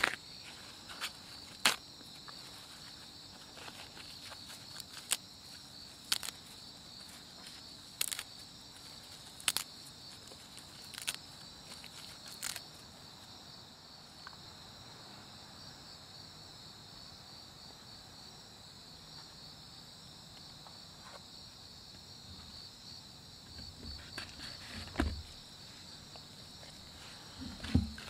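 Crickets chirping steadily in the background. Over them come sharp light clicks and taps, about one every second or two through the first half, from tableware and food being handled, then a few duller knocks near the end.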